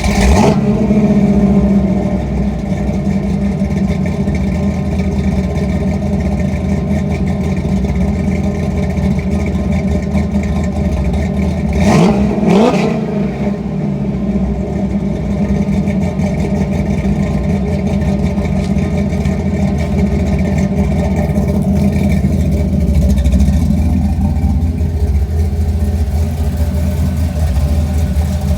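Rebuilt 355 small-block Chevy V8 with a Comp Cams XE274H flat-tappet cam, breathing through a 3-inch X-pipe exhaust, idling steadily right after starting. It is blipped twice in quick succession about twelve seconds in.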